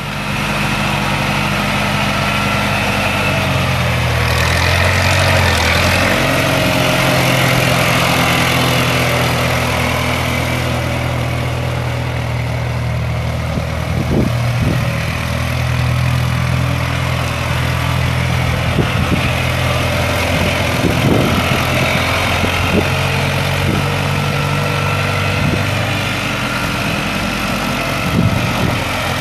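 Massey-Ferguson 165 tractor's four-cylinder gas engine running at low speed as the tractor is driven, with a brief change in pitch about four seconds in.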